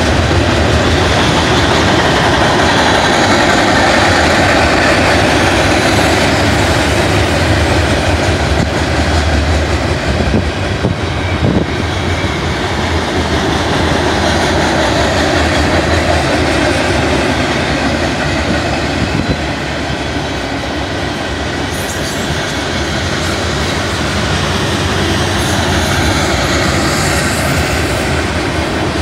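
Freight cars of a fast Union Pacific manifest train, double-stack container well cars and covered hoppers, rolling past. Their steel wheels on the rails make a loud, steady rumble.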